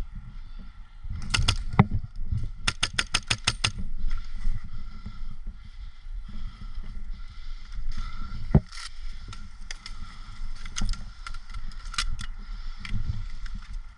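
Airsoft rifle firing a quick burst of about eight shots, about three seconds in, with scattered single shots later and low rumbling handling noise throughout.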